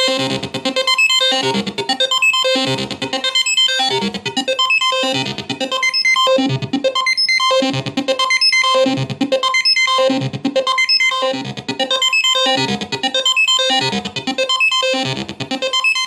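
Analog synthesizer sequenced by a Roland MC-8 MicroComposer, playing a repeating synth pattern at a steady tempo, about one phrase a second, over a steady high held tone. The sequence is running at its proper tempo now that the sequencer is repaired.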